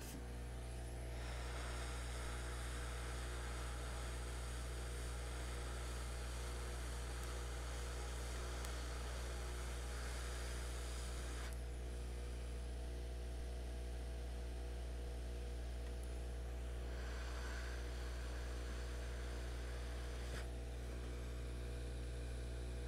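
Hot air rework station blowing, a steady hiss that starts about a second in and stops about halfway, then comes on again for a few seconds later, heating to melt the solder on a logic board shield. A steady electrical mains hum runs beneath it.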